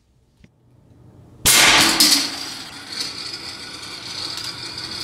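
A sudden loud clattering knock about one and a half seconds in, with a second one about half a second later, ringing out along a hard-floored hallway. A steady hiss follows and slowly fades.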